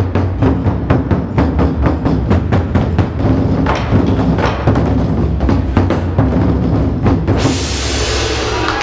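Ensemble of large Chinese barrel drums struck with wooden sticks in a fast, even unison beat of about four strokes a second. The drumming stops about seven seconds in and applause breaks out.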